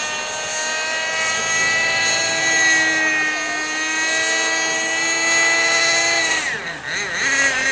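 Nitro glow engine and rotors of an 18-size RC helicopter in flight, a steady high-pitched whine. About six and a half seconds in the pitch drops sharply and the sound briefly fades, then wavers back up.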